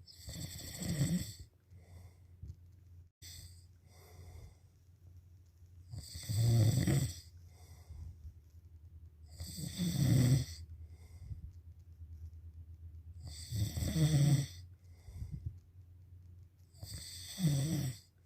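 Snoring: five loud snores, each lasting about a second and coming every three and a half to four seconds, with quieter breaths between them.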